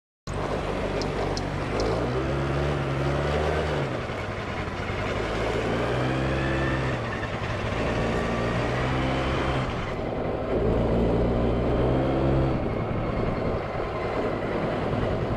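Suzuki Address V100 scooter's two-stroke single-cylinder engine running, its pitch rising and falling back several times as it is revved, with a fainter higher whine above it.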